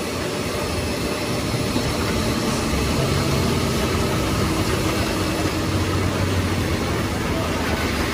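Diesel engine of a heavily loaded Hino 500 truck running steadily as it pulls up a steep wet climb, a low engine hum over a steady hiss.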